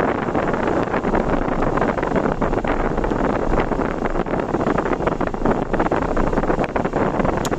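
Steady, loud wind buffeting on the microphone of a camera on a moving road vehicle, a dense rushing noise that flutters rapidly, with the vehicle's road noise underneath.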